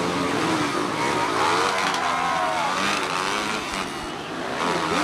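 Several motocross bikes racing together, their engines revving up and down, the pitches rising and falling over one another.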